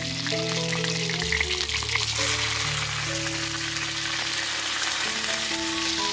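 Food frying in a pan, a steady sizzling hiss, with background music of held notes playing over it.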